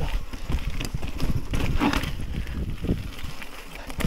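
Mountain bike rattling and knocking over a rocky trail in uneven clatters, with wind rumbling on the microphone.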